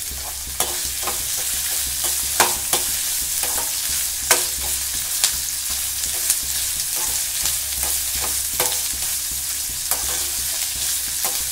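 Sliced onions, garlic cloves and dried red chillies sizzling steadily in hot oil in a metal kadai. A perforated metal ladle stirs them, scraping and clinking against the pan at irregular moments.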